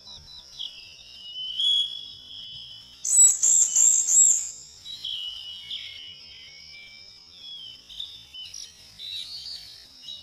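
Songbirds singing: whistled phrases and a loud run of about four quick, high, repeated notes about three seconds in, over a steady high-pitched chorus.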